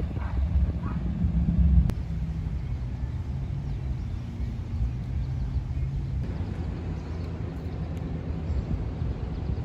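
Low, steady rumble of a car being driven, engine hum and road noise, which shifts abruptly about two and six seconds in.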